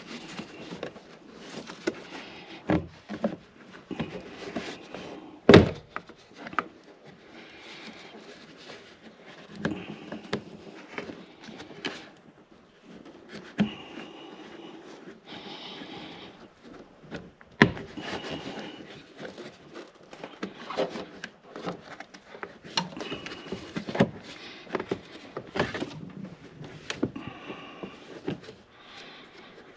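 New plastic windshield cowl trim of a BMW E39 M5 being pushed and worked into place: irregular knocks, taps and scraping rubs, with sharp knocks about five and a half seconds in and again near eighteen seconds.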